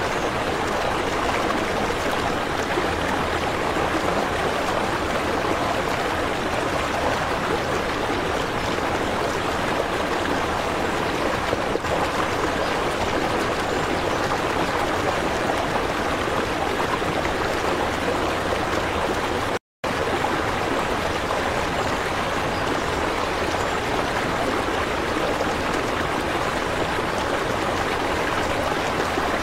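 Steady running, trickling water, with a brief cut to silence a little past the middle.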